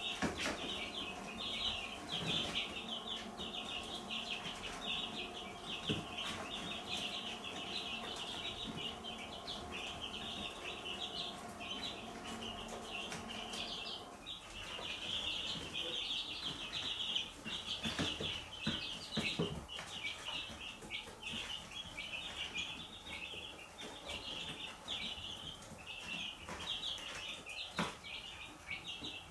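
A group of domestic chicks peeping continuously, many short high cheeps overlapping without a break.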